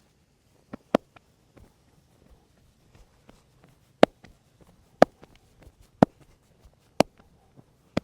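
Sharp slaps of hands striking the body during a vigorous massage: two close together about a second in, then four evenly spaced about once a second from about four seconds in, with soft taps and rustles of hands on skin between them.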